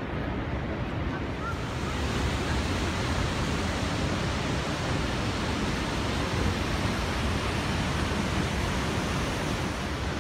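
Fountain water splashing: a steady rushing hiss that swells slightly about a second and a half in, then holds even.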